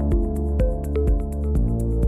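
Electronic background music with a steady beat, about two drum hits a second under quicker high ticks and held synth notes.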